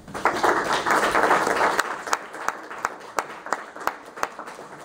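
Audience applauding: dense clapping for about two seconds, then thinning out to scattered single claps that fade away.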